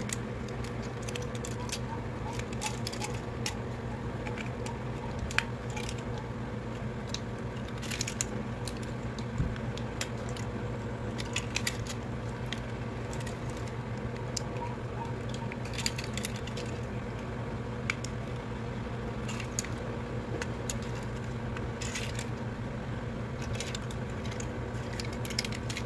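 Scattered small clicks and snaps of the plastic parts of a yellow transforming robot car toy being folded and twisted by hand, a few seconds apart, over a steady low hum.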